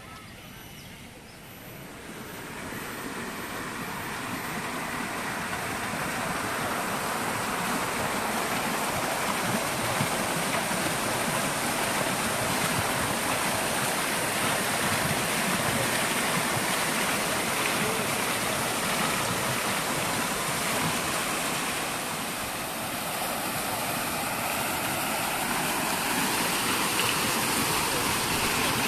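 Garden fountain jets splashing down into their pool: a steady rush of falling water that builds over the first few seconds, then holds.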